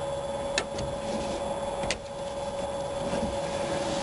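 Chrome rear-window trim moulding and its clips snapping into place: two sharp clicks about a second apart, over a steady background hum.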